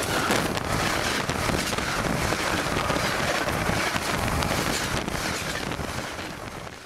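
Rail car rolling over the track directly above: a steady rumble and clatter of steel wheels on rail over concrete ties, fading out near the end.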